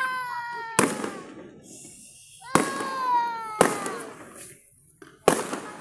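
Aerial fireworks bursting: four sharp bangs, irregularly spaced, each trailing off in echo, with a falling pitched sound after the second bang.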